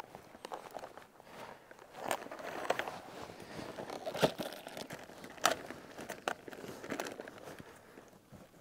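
Plastic wrapping on a bundle of split firewood crinkling as the bundle is carried, set down and cut open with a knife. Footsteps on forest ground early on, and two sharp knocks midway as the wood is put down.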